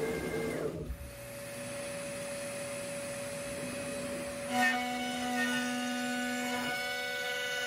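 CNC router spindle running as it carves a wooden sign with a V-bit. The sound changes sharply about a second in to a steady whine, and background music comes in about halfway through.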